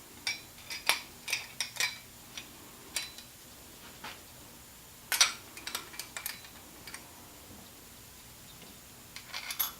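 Small metal parts of a transfer case selector fork assembly clinking and clicking as they are handled and fitted together by hand, in three short clusters of sharp clicks.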